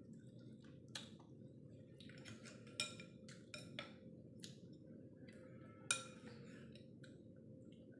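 Spoon and fork clinking and tapping against a bowl while eating, a few sharp clicks spread through, the loudest about six seconds in with a short ring.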